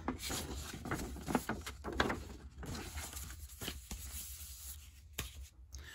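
Handling noise: a folded paper poster rustling as it is moved aside, with scattered light taps and clicks as items are picked up and set down on the table mat.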